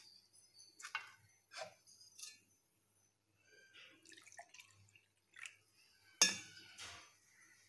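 Steel kitchenware clinking and knocking, several sharp clinks with the loudest about six seconds in, and coconut milk poured from a steel vessel into a small plastic cup around four seconds in.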